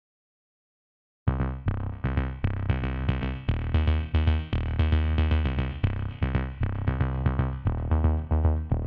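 Dead silence for about a second, then electronic background music starts, with a drum-machine beat and synthesizer notes over a heavy bass.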